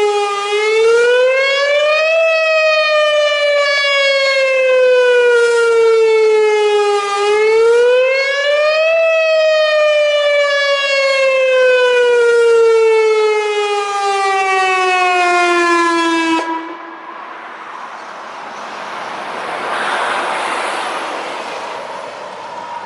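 Whelen WPS-2910 electronic outdoor warning siren sounding its wail tone during a test, a loud rising and falling howl: it climbs for about two seconds, falls for about five, climbs again, then falls slowly and cuts off about two-thirds of the way through. Afterwards a passing vehicle's noise swells and fades.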